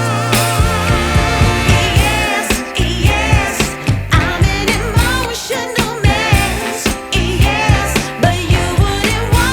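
Background music: a pop or soul song with a sung vocal line over a steady beat and bass.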